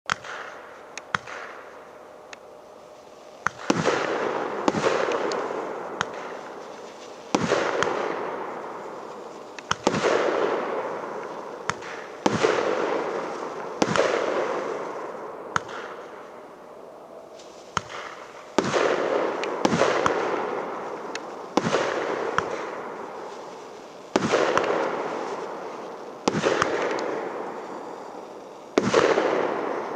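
A 19-shot, 1.2-inch consumer fireworks cake (battery) firing shot after shot, about one every one to two seconds. Each shot is a sharp bang followed by a fading crackle and hiss as the stars burn out, with small pops from the launches in between.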